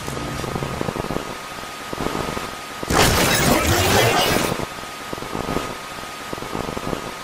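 Steady tape-like hiss with a thin high hum. About three seconds in, a loud burst of harsh static breaks in for about a second and a half: a video-glitch static sound effect.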